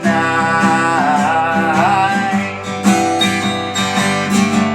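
A man singing the held word "night" with a wavering vibrato over strummed acoustic guitar; the voice stops about two seconds in and the guitar strumming goes on alone.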